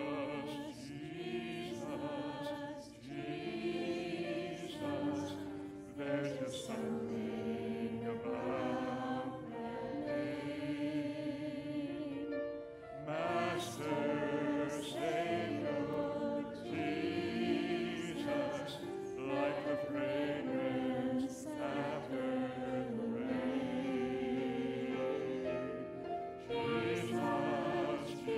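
A small group of singers singing a slow Christmas carol into microphones, in long held notes with short breaks between phrases.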